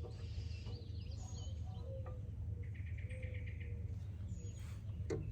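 Songbirds chirping, with quick twisting calls in the first second and a half, then a rapid trill of evenly repeated notes for about a second, over a steady low hum. A single sharp click near the end.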